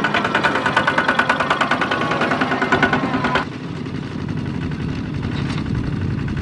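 Single-cylinder diesel engine of a Kubota two-wheel walking tractor pulling a trailer, running close by with a fast, even knocking beat. About three and a half seconds in it cuts abruptly to a lower, smoother rumble of several such tractors driving away.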